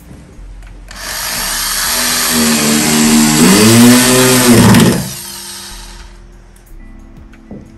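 Corded electric drill with a screwdriver bit running for about four seconds, driving into a laminated particleboard wardrobe panel. Its motor whine climbs and then drops near the end before the drill winds down.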